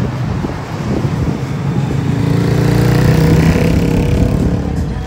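A motor vehicle passes close by, its engine note swelling to a peak about three seconds in and then fading away.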